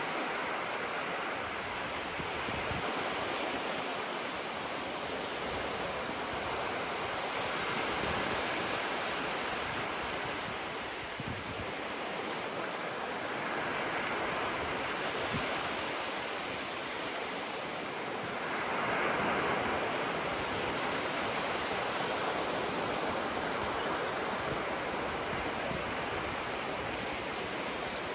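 Small waves breaking and washing up on a sandy shore, a steady rush that swells and eases every few seconds, loudest about two-thirds of the way through.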